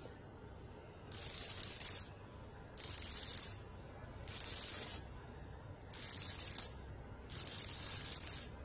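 Small vibration motor in a xóc đĩa cheating receiver buzzing and rattling against a hard surface in five evenly spaced pulses, each about a second long. The pulse count is the code for the coin pattern under the dish: 5 to 6 pulses mean 'sấp đôi' (two coins each way).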